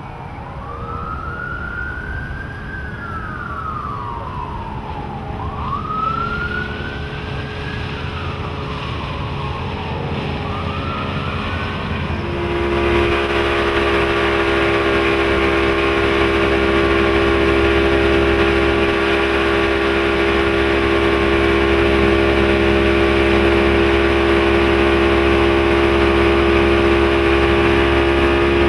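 A siren wails, its pitch rising and falling slowly over a few seconds each time. About twelve seconds in, this gives way to a louder, close-up recording of a Johnson 150 HP Ocean Runner V6 two-stroke outboard running steadily at speed, with water rushing and wind.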